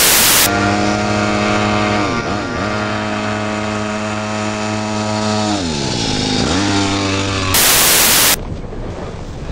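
A short burst of TV static hiss, then a pocket bike's small engine buzzing steadily, its pitch dipping and climbing back about two seconds in and again, with a longer dip, about six seconds in. Another short burst of static follows near the end.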